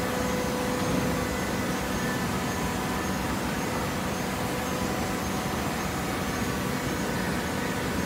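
TCM horizontal hydraulic baler running, a steady mechanical drone with a faint hum of several steady tones.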